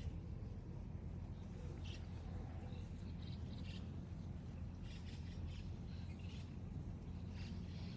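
Birds chirping in short scattered calls over a steady low outdoor rumble.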